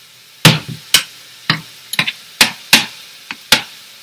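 A metal spoon clinking against a saucepan while stirring melting cheese dip: about eight sharp clicks at an uneven pace, roughly two a second.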